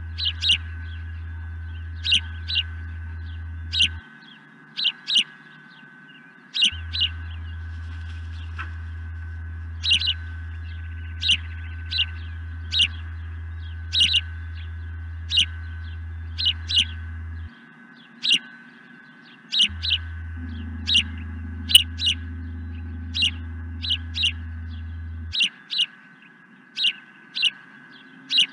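Osprey calling overhead: a long series of short, sharp, high whistled chirps, often in pairs, about one a second. The uploader likens the calls to those of a male osprey in his sky-dance display. Under the calls runs a steady low hum that cuts out three times.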